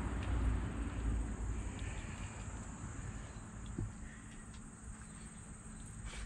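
Steady high-pitched drone of crickets or similar insects, over a low rumble that is strongest in the first second or so and then eases off.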